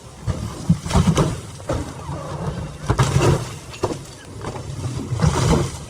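Demolition work: a steady low rumble of machinery with irregular knocks and crashes of breaking material.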